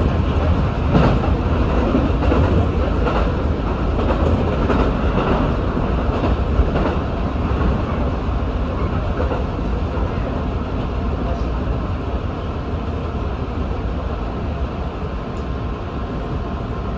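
Electric passenger train running over track, heard from the front of the car. Wheels click over switches and rail joints through the first several seconds, then give way to a steadier rumble that grows a little quieter.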